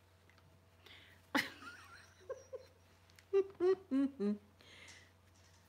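A woman humming a short tune of about five quick notes that step down in pitch, after a single sharp click about one and a half seconds in.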